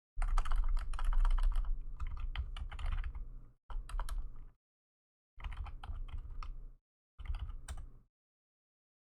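Computer keyboard typing in four quick bursts of key clicks with dead-silent pauses between them, as a command is typed into a terminal.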